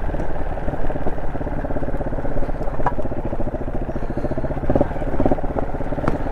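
Honda SL230's single-cylinder four-stroke engine, fitted with an aftermarket muffler and a rejetted carburettor, running at low revs while riding: a steady, even train of exhaust pulses, with a few light ticks.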